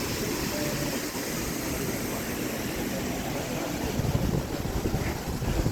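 Wind buffeting the microphone over steady outdoor background noise, the low rumbling growing stronger about four seconds in.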